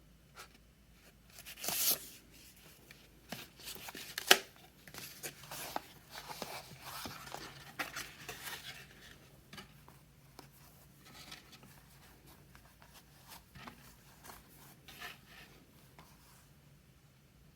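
Packaging of a new traveler's notebook being unwrapped by hand: a tear just before two seconds in, a sharp snap a little after four, a stretch of rustling, then scattered small clicks and rustles as the handling slows.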